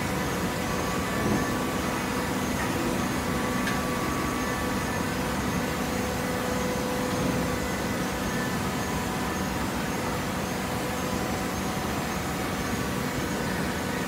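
Automatic horizontal hydraulic baler running: a steady mechanical hum with a few faint steady tones over it.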